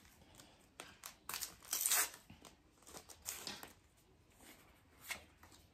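Wrapper of an Adrenalyn XL trading card pack crinkling and tearing open, loudest about a second and a half in, followed by lighter rustling and a few sharp clicks as the cards are handled.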